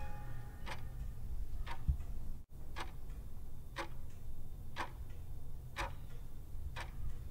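Clock ticking about once a second over a low steady rumble. The sound drops out for an instant about two and a half seconds in.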